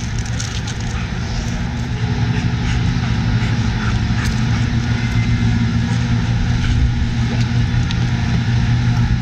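A motor vehicle engine running steadily, a continuous low drone, with a few faint clicks over it.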